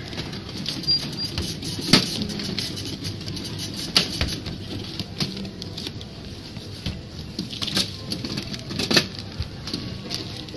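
Checkout-counter handling noise: a handful of sharp knocks and clicks as goods are set down on a stainless-steel counter, over a steady background hum of a busy store.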